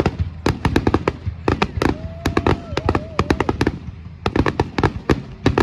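Fireworks crackling: a rapid, irregular string of sharp pops and bangs, several a second, easing briefly about four seconds in.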